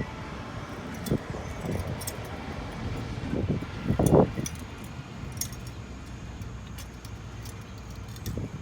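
Light metallic clinking and a few dull knocks from a car jack and lug wrench being handled and set in place under the car, with the loudest knock about four seconds in.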